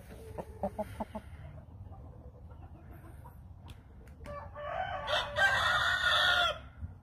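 Shamo gamecock roosters give a few short clucks, then one rooster crows: a single loud crow about two seconds long, starting a little past halfway.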